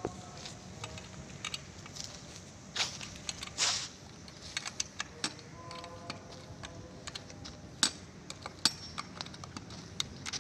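Chainsaw bar and chain being handled for a swap with the engine off: scattered small metallic clicks and clinks, with two short scraping sounds a few seconds in.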